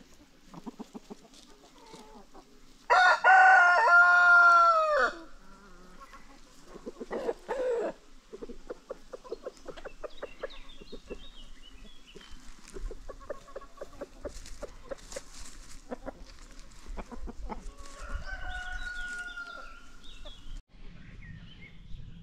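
Free-range chickens: a rooster crows loudly about three seconds in, one long call of about two seconds, while hens cluck around it in short repeated calls. A second, fainter crow comes near the end.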